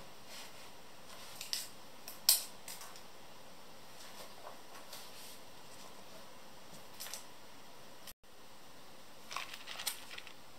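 Light handling noises: a few sharp clicks and taps, the loudest a single click about two seconds in, then a short cluster of small rattling clicks near the end as a cardboard box of wood screws is handled.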